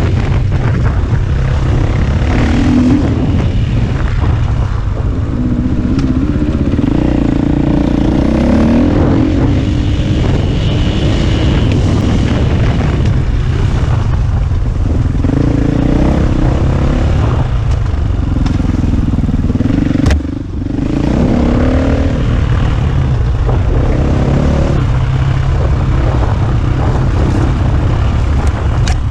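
KTM EXC 450 enduro motorcycle's single-cylinder four-stroke engine running under load while riding, its revs rising and falling every few seconds, with one brief drop in level about two-thirds of the way through.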